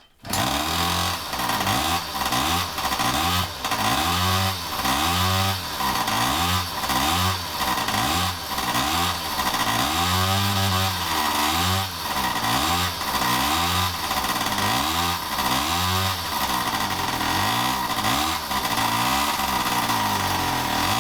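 The 36 cc two-stroke engine of a ZiD-36 Ptakha mini moped starts just as the sound begins and keeps running, revved up and down about once a second. This is its first run after a rebuild.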